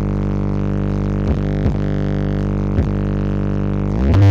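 Stacked sound-system speaker cabinets playing a steady, buzzing low electronic drone during a sound check. A few quick pitch sweeps cut across it, and it swells louder near the end.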